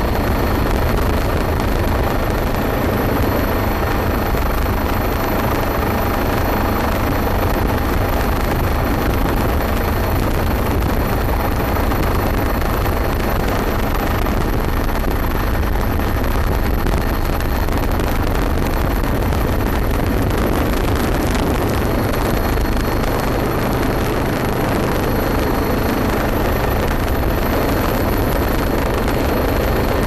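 Helicopter engine and rotor noise, loud and steady throughout.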